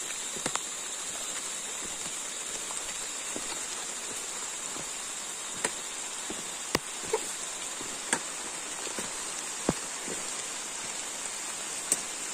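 A hiker's footsteps on the trail, heard as irregular light taps and clicks roughly once a second, over a steady hiss.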